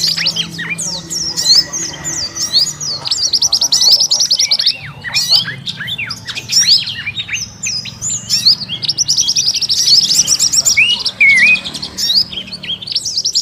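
Bird-lure recording of a noisy flock of small forest birds: many rapid, overlapping high chirps and twitters, with short downward-sweeping notes, heard all the time.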